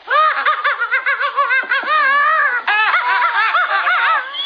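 A woman laughing helplessly in rapid, high-pitched giggles that rise and fall, with a brief catch of breath about two and a half seconds in.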